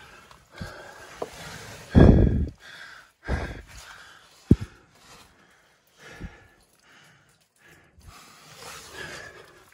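Footsteps and handling noises on a debris-strewn floor inside a small stone hut. Two heavy thumps come about two and three seconds in, then a sharp knock, and shuffling and rustling run between them.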